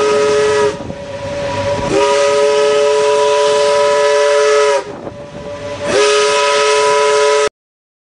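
Ship's steam whistle blowing three blasts, a short one, a long one and a shorter one, each a chord of two or more tones that bends slightly at its start and end, with the hiss of escaping steam between blasts.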